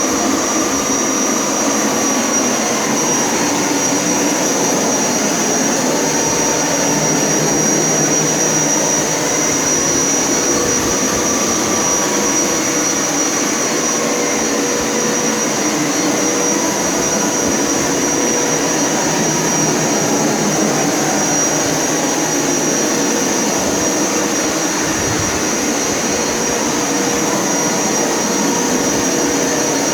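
Hoover Power Scrub Elite carpet cleaner running steadily in rinse mode, its suction motor pulling water up from the carpet, with a thin high whine over the motor noise and slight wavers in pitch.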